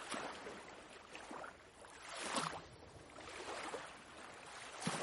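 Recorded ocean waves washing gently, swelling softly about halfway through and again near the end.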